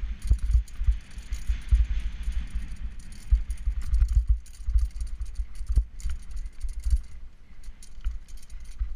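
Mountain bike rolling over a bumpy, rutted dirt trail: irregular low thumps and rattling as the bike and its camera jolt over the ruts, with wind rushing past.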